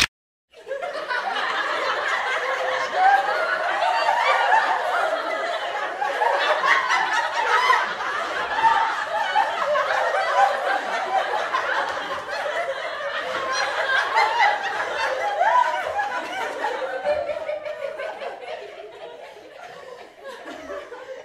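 Crowd of party guests talking over one another with bursts of laughter, a dense babble of many voices that thins out near the end.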